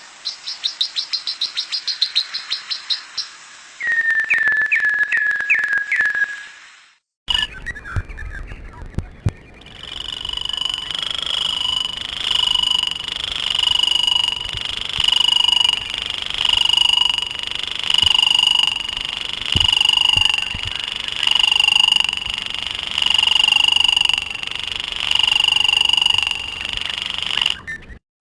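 Wild bird calls from separate recordings spliced one after another: first a fast series of high chirps, then a run of lower falling notes. After a short break comes a call repeated about every second and a half that cuts off abruptly near the end.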